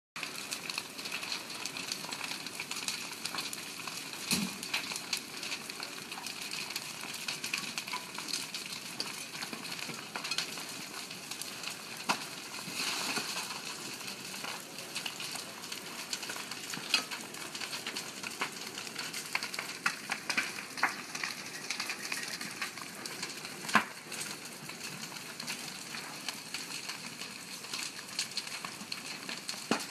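Fire crackling and popping steadily as a lava flow burns into a carport and the things stored in it, with a steady hiss underneath and a few louder pops, one of them with a low thump about four seconds in.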